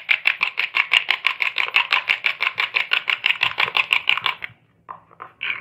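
Eggs being beaten with a fork in a bowl: rapid, even strokes of the fork through the egg and against the bowl, roughly nine a second, stopping about four and a half seconds in, then a few light clicks.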